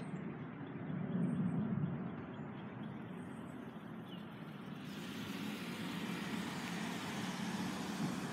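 Steady low rumble of a road vehicle, swelling briefly about a second in and turning into a broader hiss about five seconds in.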